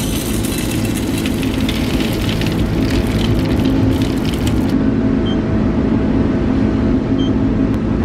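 Shelled corn kernels pour from a bucket into the metal hopper of a GAC2500 grain moisture tester, a dense rattling hiss that stops about five seconds in. Under it, the grain dryer's machinery runs with a steady low hum, and two faint short beeps follow the pour.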